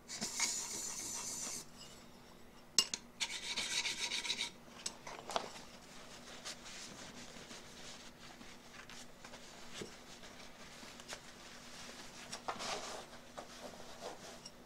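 Steel chip breaker scraped on the 1000-grit side of a sharpening plate in two short passages with a sharp click between them, honing off the burr. Then fainter rustling as a cloth wipes the steel.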